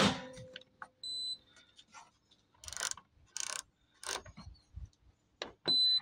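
Control panel of a Makita XGT 40 V cordless microwave beeping as its buttons are pressed: two short high beeps, one about a second in and one near the end, with a few brief rustling handling sounds between.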